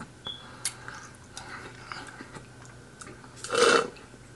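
Quiet chewing and mouth clicks close to the microphone, with one short, louder breathy sound about three and a half seconds in.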